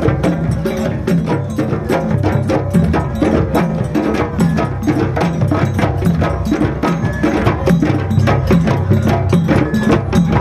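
Japanese festival percussion ensemble playing: a fast, dense rhythm of sharp wooden-sounding strikes over low drum tones.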